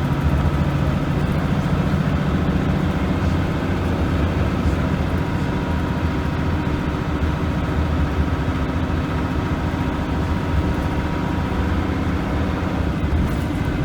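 Leyland National Mk2 bus's Leyland L11 six-cylinder diesel engine running at a steady speed, a constant low drone.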